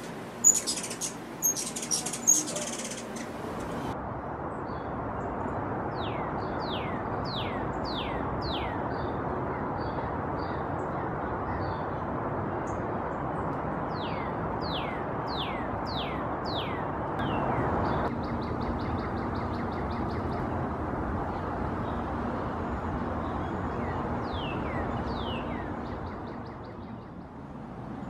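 Hummingbirds make a few sharp, high chips in the first three seconds. Then a northern cardinal sings runs of quick descending slurred whistles, in several bouts, over a steady background rush.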